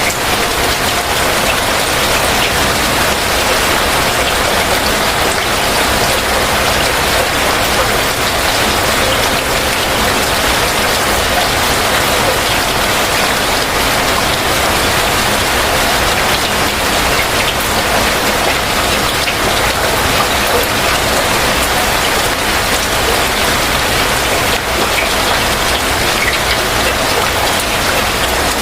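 Heavy rain falling steadily, a loud, dense, unbroken patter.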